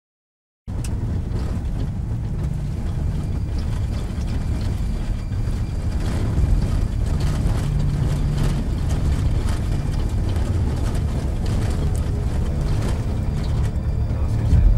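Dead silence, then from about half a second in the steady low rumble of a moving car heard from inside the cabin: engine and tyre noise on the road.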